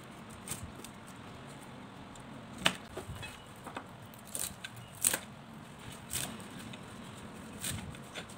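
Kitchen knife cutting water spinach stems on a wooden cutting board: a handful of separate, irregularly spaced sharp chops, two of them louder than the rest.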